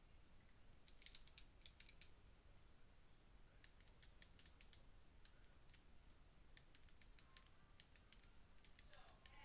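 Faint typing on a computer keyboard: four short runs of quick key clicks.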